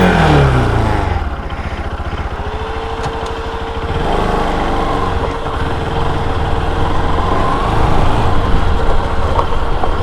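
Bajaj Pulsar RS200's single-cylinder engine revs and falls back in pitch in the first second, then runs steadily at low speed. A thin steady whine joins in about two seconds in.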